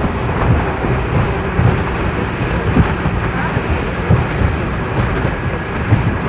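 Loud, uneven low rumbling noise of wind and water buffeting the microphone.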